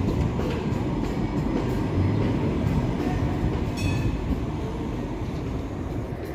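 An articulated electric tram rolling past close by: a steady rumble of wheels on the rails and the running gear, fading away over the last second or two. A short high chirp sounds just before the four-second mark.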